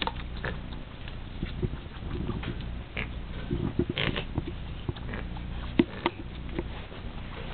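Flat-faced cat snorting through its nose in short, irregular bursts while playing with a feather wand toy, a sound typical of the pushed-in nose of a brachycephalic breed.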